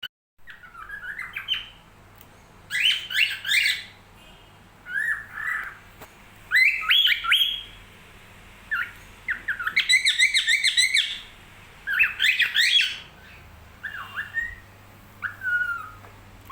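Pet birds chirping and squawking in short bouts of quick rising and falling notes that repeat every second or two.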